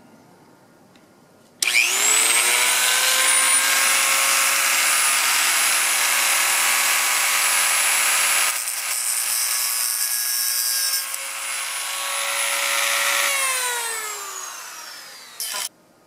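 A Dremel-type rotary tool starts about a second and a half in and spins up to a steady high-pitched whine, with a grinding rasp as it trims the plastic battery latch of a Contour GPS 1400 camera. Near the end it is switched off and winds down over about two seconds, then gives one short burst.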